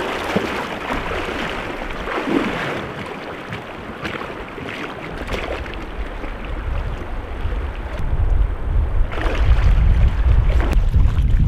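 River water rushing over a shallow riffle, with wind buffeting the microphone as a heavy low rumble from about eight seconds in.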